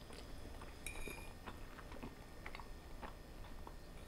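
Faint chewing of a mouthful of creamy fettuccine, with small wet mouth clicks, and a short metallic clink of a fork against a ceramic plate about a second in.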